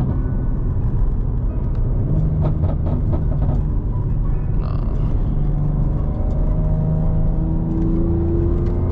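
BMW G80 M3's tuned twin-turbo inline-six heard from inside the cabin, cruising steadily in traffic with road noise. Near the end the engine note starts rising as the car accelerates.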